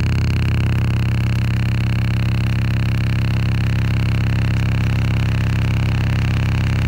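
Loud, steady low electrical hum in the camcorder's recording, interference picked up from the high-voltage overhead catenary. It drowns out the sound of the passing electric train.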